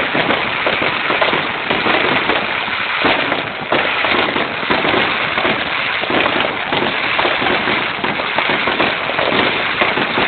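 Aerial fireworks going off continuously: a dense, unbroken crackle of many rapid pops and bangs.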